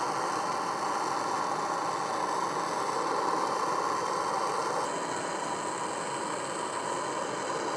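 MAPP gas hand torch burning with a steady hiss of the flame while it heats an aluminum coil for a rod repair. About five seconds in, the hiss shifts slightly in tone and drops a little.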